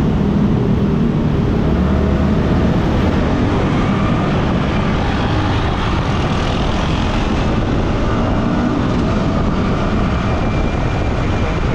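Yamaha R15M's 155 cc single-cylinder engine on its stock exhaust, running steadily while the bike cruises, mixed with wind and road noise.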